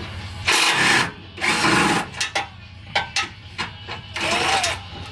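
Handheld cordless power tool with a 5/8-inch deep-well socket, run in three short bursts on the crossmember-to-transmission bolts, with a few sharp clicks in between.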